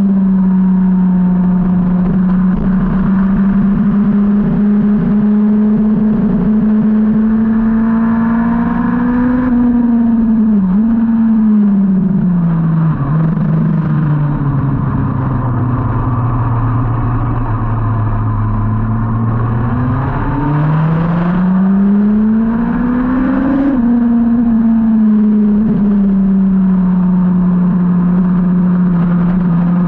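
A 2003 Yamaha R1's inline-four engine heard onboard at speed. The revs hold steady, then drop with a few quick blips as the bike brakes and changes down for a corner, and stay low through the slow section. After that they climb steadily as the bike accelerates out, fall sharply at an upshift, and hold steady again.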